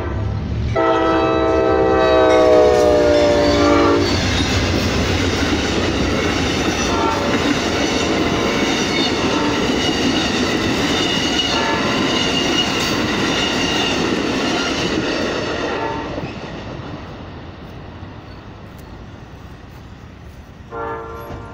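Amtrak passenger train's horn sounding one long blast at a grade crossing, then the train passing with its wheels clattering steadily over the rails. The wheel noise fades about sixteen seconds in as the last cars go by.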